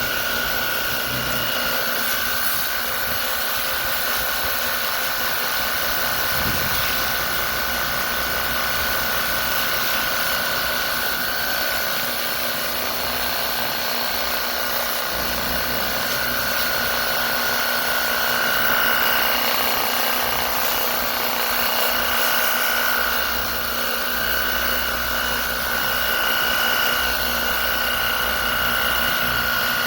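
WORX HydroShot cordless pressure washer running, its electric motor and pump giving a steady high whine over a hiss.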